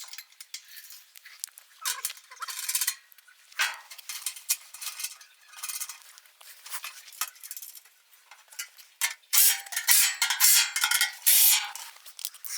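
Metal parts and hand tools clinking and scraping against each other in irregular bursts, busiest and loudest in the last few seconds.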